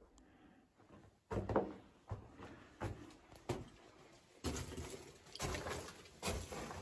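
Footsteps scuffing and crunching on dry dirt and rock in a narrow rock passage, starting about a second in, with irregular scrapes roughly once or twice a second.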